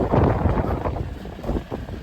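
Wind buffeting the microphone aboard a fishing boat at sea, over the low rumble of the boat, with scattered knocks; it eases after about a second.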